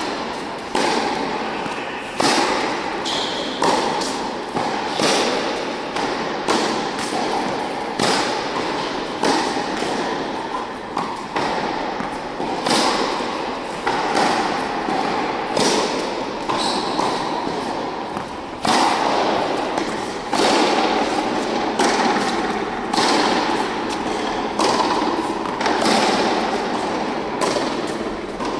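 Tennis ball struck by racket strings and bouncing on an indoor hard court during a baseline rally: sharp hits about every second and a half, each with a short echo.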